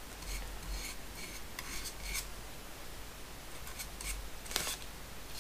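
Small paintbrush scraping and dabbing red flocking glue inside a wooden drawer: a run of short, quiet strokes, the loudest about four and a half seconds in.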